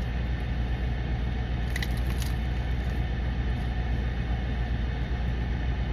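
Steady low hum of an idling vehicle engine heard from inside the cabin, with a short crunch about two seconds in as a crunchy taco shell is bitten into.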